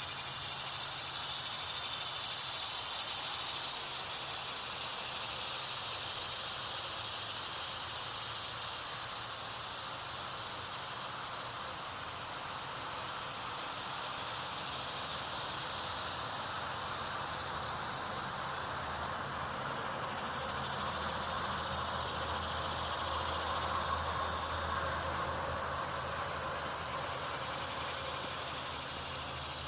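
A summer insect chorus, crickets or similar, in a steady, dense, high-pitched drone that goes on without a break.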